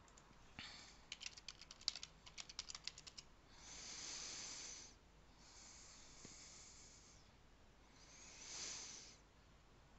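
Computer keyboard typing, a quick run of keystrokes in the first few seconds, followed by three soft breaths into the microphone.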